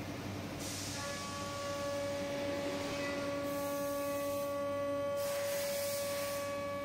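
CNC router spindle running, a steady whine made of several tones that settles in about a second in. Two short bursts of hiss come in, one just before that and one around five seconds in.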